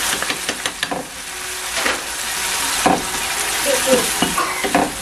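Sauce sizzling in a frying pan while a spoon stirs it, with scattered scrapes and knocks of the spoon against the pan over a steady hiss.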